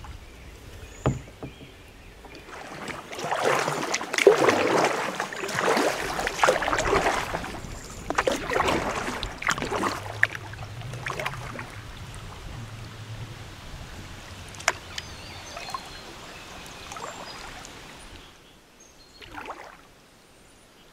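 Kayak paddle blades dipping and splashing in calm river water in uneven strokes, with small sharp splashes between them. The splashing is heaviest in the first half and thins out near the end.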